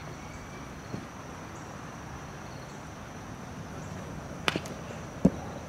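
Steady high drone of crickets or other insects. Near the end, a pitched baseball cracks into a catcher's mitt, followed less than a second later by a second, louder sharp smack.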